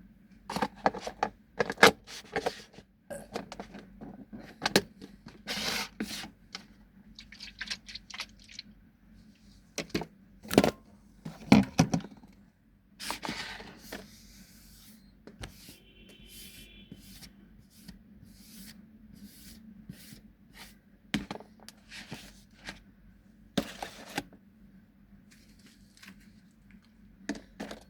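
Irregular knocks, scrapes and clicks of kitchen utensils and containers being handled, some sharp and loud, others soft, over a steady low hum.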